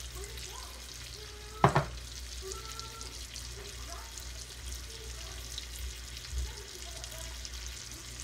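Ribeye steak frying in butter and oil in a cast iron skillet: a steady crackling sizzle. There is a short, sharp knock about a second and a half in.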